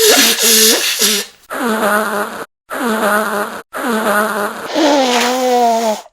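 A person blowing their nose hard, about five forceful blows in a row with short gaps between them. Each blow carries a pitched, honking tone, and the last is the longest, sinking slightly in pitch.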